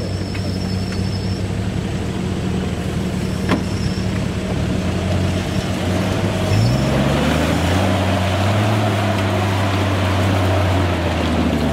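Off-road 4x4's engine running low and steady as it crawls down into a muddy creek, then revving up about halfway through and held under load as it climbs the bank out, dipping briefly near the end. A single sharp knock a few seconds in.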